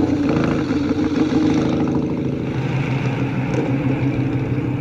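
Motorcycle engine running, its note shifting about halfway through.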